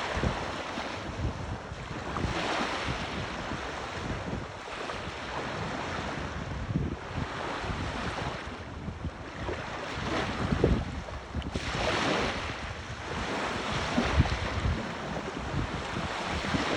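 Sea waves breaking and washing in, swelling and fading every few seconds, with wind buffeting the microphone.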